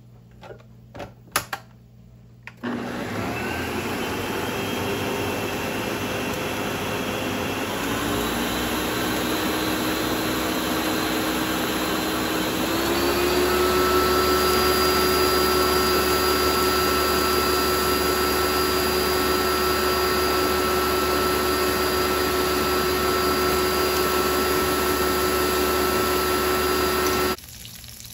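A few clicks, then an electric kitchen appliance motor starts suddenly and runs with a steady whir, stepping up in speed and pitch twice before it cuts off abruptly near the end.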